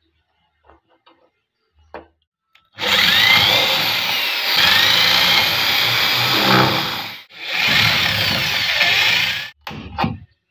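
Electric hand drill boring through a plywood panel in two runs of about four and two seconds with a short break between, the motor's pitch sliding up and down as the bit bites. A few brief handling sounds follow near the end.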